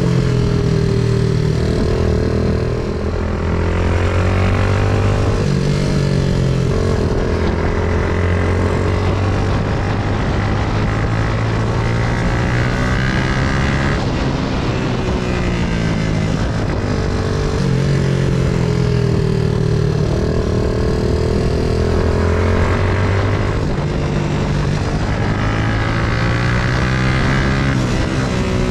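Hi Speed Infinity 150 cafe racer motorcycle's 150 cc engine running under way, its pitch rising and falling every few seconds as the throttle and gears change.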